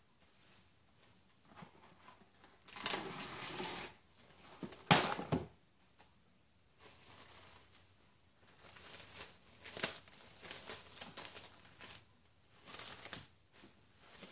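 Plastic wrap crinkling in irregular bursts as a loaf of bread is wrapped by hand, with one sharp knock about five seconds in.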